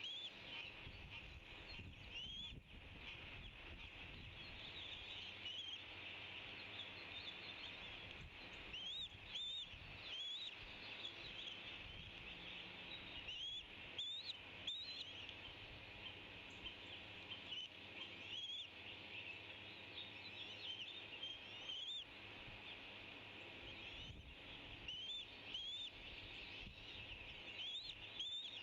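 Eagle chick giving repeated high, short rising begging chirps, the calls of a hungry nestling, over a steady background hiss.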